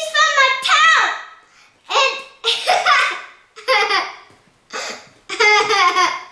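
A young girl laughing loudly in a string of short, high-pitched bursts.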